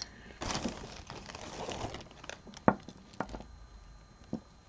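Plastic bag crinkling as pieces of jewelry are handled and sorted, followed by a few sharp clicks of small hard objects knocking together.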